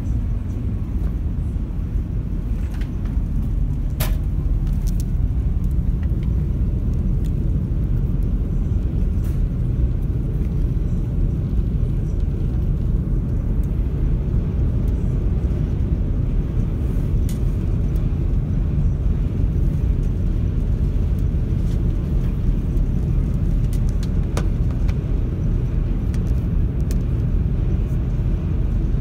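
Steady low rumble heard aboard a car ferry: the ship's engines droning together with the noise of wind and water. A sharp click comes about four seconds in and a fainter one later.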